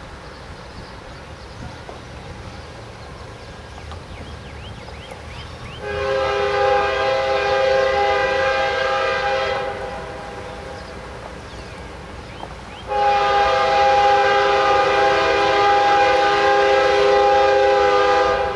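Multi-chime air horn of an approaching BNSF GE Evolution-series locomotive sounding two long blasts, a chord of several steady tones. The second blast starts about three seconds after the first ends and is held longer: the horn warning for a level crossing.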